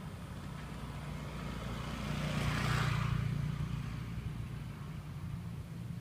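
Motor scooter riding past close by: its engine grows louder, is loudest about halfway through, then fades away.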